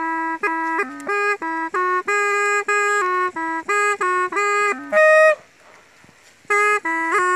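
A small bamboo pipe played solo: a melody of short held notes stepping up and down. A louder high note comes about five seconds in, then a pause of about a second before the tune resumes.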